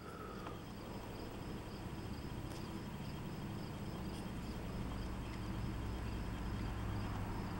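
Quiet room tone: a steady low hum and hiss, with a faint high-pitched pulse about three times a second and a few faint clicks.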